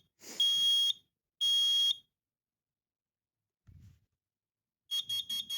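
Kidde 30CUAR combination smoke and carbon-monoxide alarm in its self-test: its piezo horn ends the fire pattern with long, high, piercing beeps, the temporal-three smoke signal. After a pause and a faint low thump, it starts rapid short beeps near the end, the carbon-monoxide signal.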